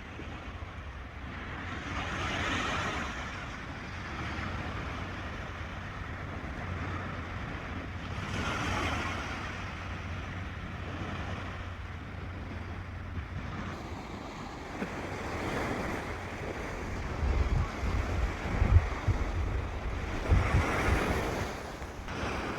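Sea waves breaking and washing onto the shore, one swell about every six seconds, with wind rumbling on the microphone that gusts harder near the end.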